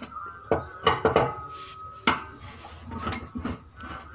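A handful of sharp metallic clinks and knocks, some ringing briefly, as a wrench works a bolt on the fuel filter cover bracket under a car.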